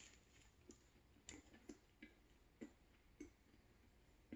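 Faint chewing of a flaky croissant with Nutella: soft, irregular mouth clicks and crunches, about two a second.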